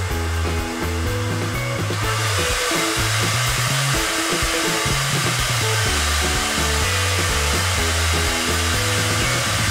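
Hanil Cyclone RH-4200 2200 W hair dryer blowing steadily, its airflow rush growing stronger about two seconds in, over background music.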